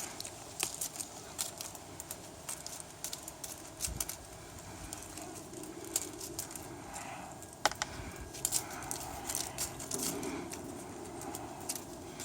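Irregular light rustling and crackling clicks, with one sharper click near the middle.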